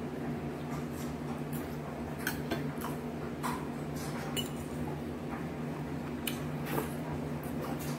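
Metal fork and knife clicking and scraping against a dinner plate in scattered light taps, over a steady low hum.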